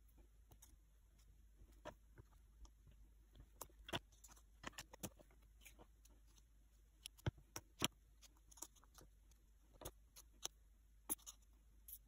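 Faint, scattered light taps and clicks of small clay figures being handled and set down on a card board, with near silence in between.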